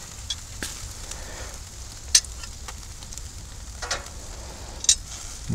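Chicken sizzling on a wire grill grate over lump charcoal: a steady faint hiss broken by four short sharp clicks, the loudest about two seconds in.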